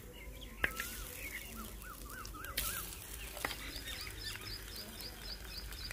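Birds calling: a rising whistle, then a short run of wavy warbling notes, then a fast series of high chirps at about five a second. Two short, sharp knocks stand out, one right at the start and one about halfway through.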